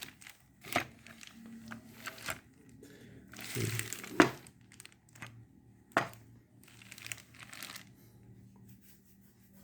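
Handling noise from a DeWalt jigsaw and its cord being moved about: rustling with a few sharp clicks and knocks, the loudest a little over four seconds in.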